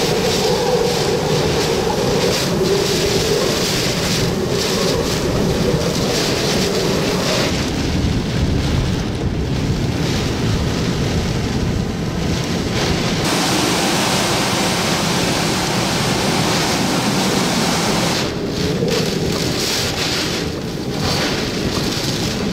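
Hurricane-force wind and heavy, wind-driven rain blowing hard and without let-up, with wind buffeting the microphone; the sound shifts abruptly a few times.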